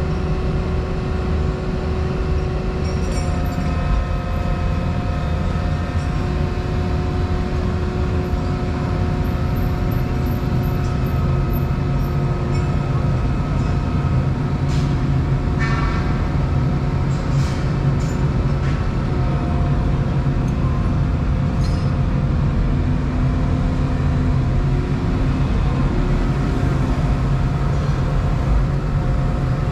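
Volvo 235EL excavator's diesel engine and hydraulics running, heard from inside the cab: a steady low drone with whining tones that shift in pitch now and then, and a few sharp clicks or clanks about halfway through.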